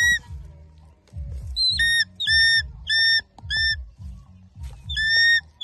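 Juvenile eagle calling: a series of short, high, whistled notes, four in quick succession and then a longer one near the end.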